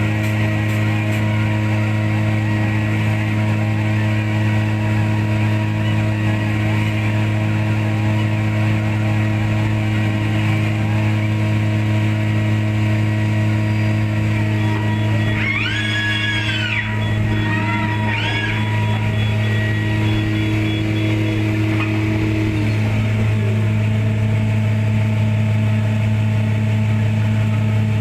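Background music over a steady low machine hum. A few short whining tones rise and fall a little past halfway through.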